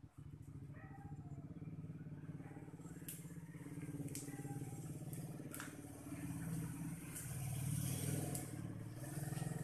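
A small engine running steadily, growing louder in the second half, with a few faint clicks.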